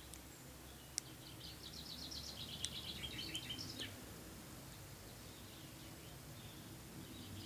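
A small songbird singing one quick, rapid run of high notes lasting about two seconds, starting about a second and a half in, over faint outdoor background noise. A single sharp click comes just before the song.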